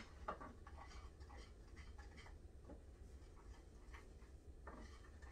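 Faint, irregular scraping and light clicks of a utensil stirring a thick, clumpy mixture of powdered sugar, cocoa and milk in a bowl.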